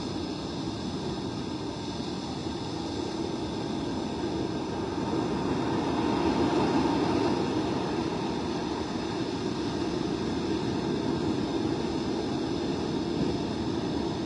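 Heavy surf and wind on a storm-driven beach: a steady rushing noise that swells about halfway through, then eases a little.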